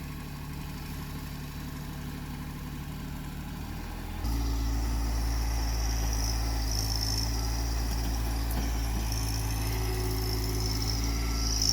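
Compact tractor's diesel engine (TYM 264) running steadily. About four seconds in it abruptly gets louder and heavier, and a high whine joins it.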